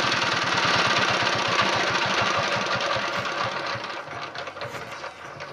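Dongfeng single-cylinder diesel engine running with a rapid, even knock, then slowing and fading away from about three seconds in as it winds down. The owner reads the engine as burning oil from its white exhaust smoke.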